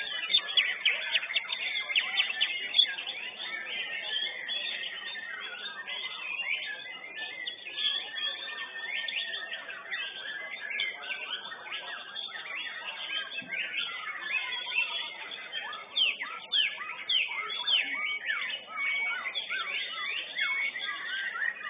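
White-rumped shama (murai batu) singing a continuous, fast run of varied whistles, trills and chirps.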